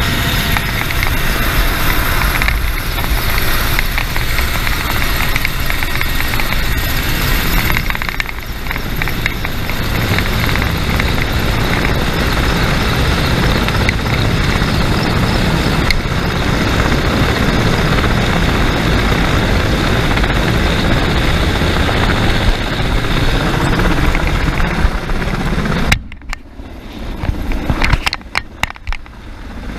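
Mi-8MTV helicopter hovering just overhead: loud, steady noise of its rotor and twin turboshaft engines, with the rotor wash buffeting the microphone. The noise drops away in a few brief gaps near the end.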